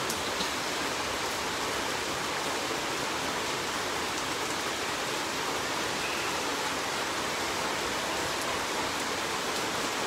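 Heavy monsoon rain falling without let-up: a constant, even hiss of downpour.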